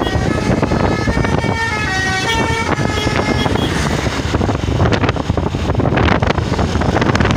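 Tour bus's Basuri "telolet" multi-tone horn playing a tune of short notes that step up and down in pitch, over a steady rumble of engine and road noise.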